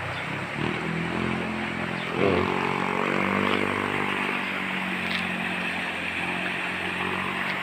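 A vehicle engine running, its pitch rising about two seconds in and then holding steady, over the steady rush of a river running high after rain.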